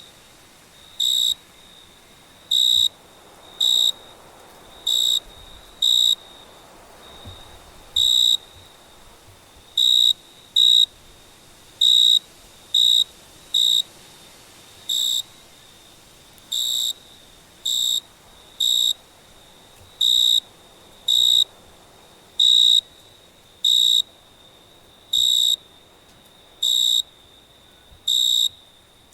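A cricket chirping: short chirps at one high pitch, repeating roughly once a second at uneven intervals, over a faint steady hiss.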